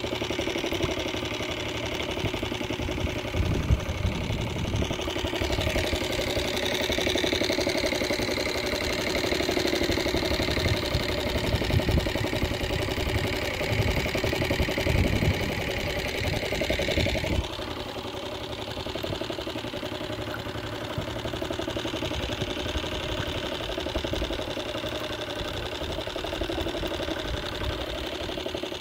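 Small boat motor running steadily at low speed, easing to a quieter, lower setting a little past halfway.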